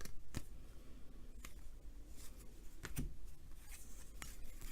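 Baseball trading cards being handled and sorted into stacks: light card-on-card rustling with a handful of sharp taps and flicks spread through.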